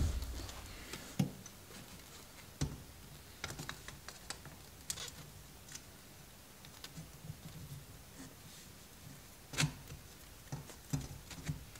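Irregular small metal clicks and snaps as end cutters crimp a 1951 Chevy's metal windlace trim channel closed along the door pillar, with a longer pause in the middle.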